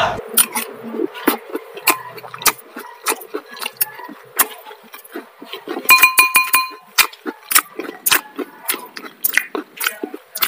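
Stainless steel spoon clinking and scraping against a ceramic bowl while scooping rice, with close-miked chewing and mouth clicks in between. About six seconds in, one clink rings out for most of a second.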